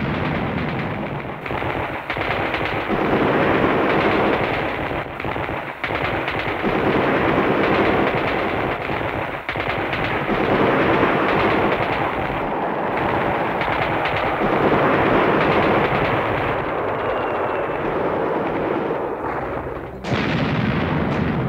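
Sustained machine-gun fire, a recorded battle sound effect played through a hall's loudspeakers.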